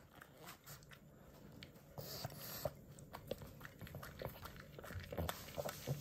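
A pug eating off a plate: faint chewing and smacking, a run of small clicks that gets busier in the second half.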